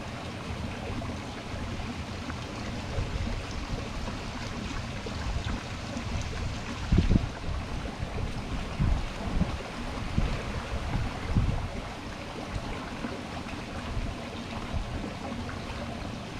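Water sloshing and trickling at the edge of a lake, with several dull low thumps in the middle, the loudest about seven seconds in.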